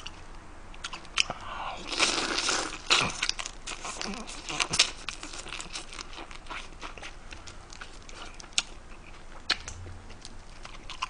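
A person biting and chewing pieces of spicy blue crab close to the microphone: scattered cracks, crunches and wet mouth clicks, busiest a second or two in and thinner after.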